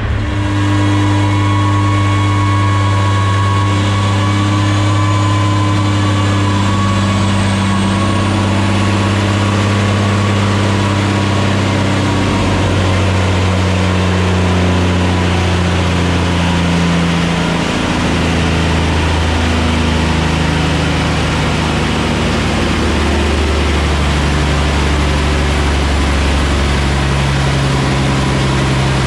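Caterpillar 6NZ inline-six diesel running at a steady speed, its pitch stepping down slightly about twelve and eighteen seconds in, with a faint high whine rising early on. The engine has a little hiccup from air in the fuel system and a loss of fuel pressure across the cylinder head.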